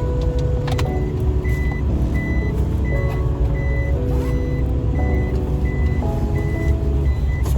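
Car cabin rumble with a steady high beep repeating about three times a second from about a second in, typical of a reversing or parking sensor, over background music.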